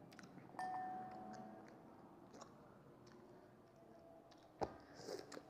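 Faint chewing of sour candy, with scattered small clicks. About half a second in there is a short ringing tone that fades, and near the end a sharp click followed by a brief rustle.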